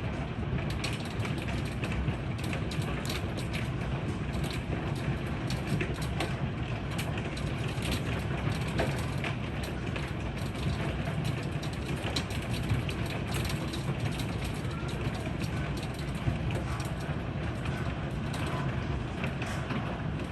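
Heavy rain and hail pelting down: a steady downpour dotted with many sharp ticks of hailstones striking hard surfaces.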